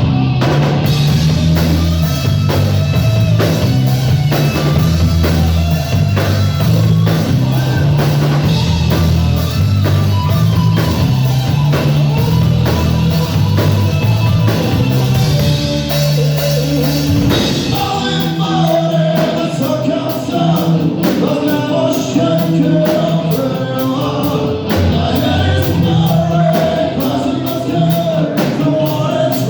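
A heavy metal band playing a rock song: a driving bass and guitar riff over a drum kit. Singing comes in about seventeen seconds in.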